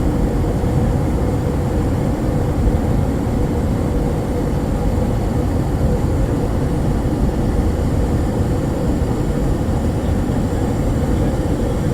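Steady low roar of a Douglas DC-8 jetliner in flight, heard from inside the passenger cabin, with a faint steady hum running through it.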